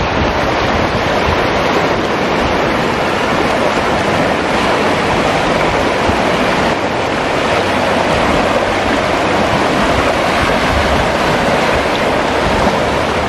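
Loud, steady rush of a flooded river: fast, muddy floodwater churning in standing waves and rapids.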